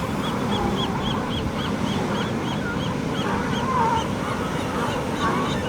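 Seabirds calling over steady ocean surf: a quick run of short, high chirping notes, about four a second, for roughly three seconds, followed by lower wavering calls and a few fainter high notes near the end.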